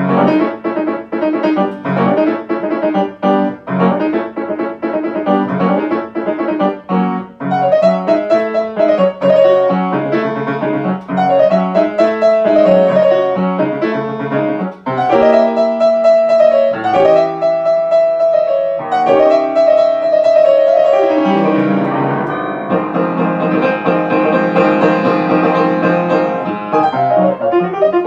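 Grand piano played solo: a fast, syncopated novelty-piano piece. It starts suddenly, and near the end the playing turns to fuller, held chords.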